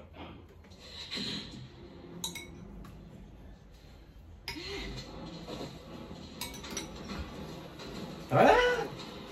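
Cutlery and dishes clinking at a table during a meal, with a few sharp clinks. A short, loud voice cuts in near the end.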